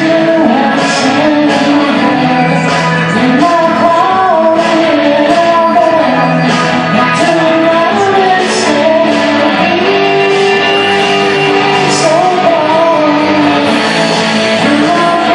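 Live rock band playing a song: a singer's voice carries the melody over a full, loud band sound.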